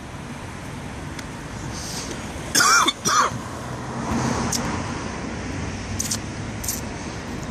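Steady street traffic noise, with two short, loud bursts from a person's voice about two and a half and three seconds in; the traffic noise swells slightly after that.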